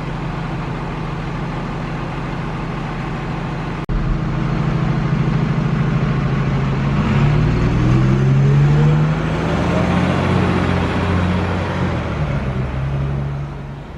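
Bus engine idling steadily, then, after an abrupt break, a bus accelerating away with a rising engine note that is loudest a little past the middle and eases off near the end.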